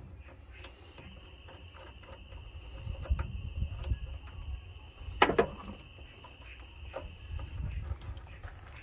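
Hands working on hoses and wiring in a van's engine bay: scattered clicks and scrapes, with one sharp click about five seconds in. A faint steady high whine runs through most of it.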